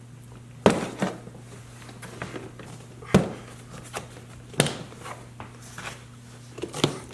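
Sharp hard-plastic knocks and clicks, about five of them spaced a second or more apart, as a plastic searchlight assembly is pushed and snapped into the clips of a ride-on toy truck's plastic body. A faint steady hum runs underneath.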